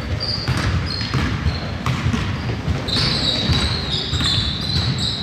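Basketball bouncing on a gym's hardwood court during play, with repeated thuds and high-pitched squeaks that grow denser in the second half.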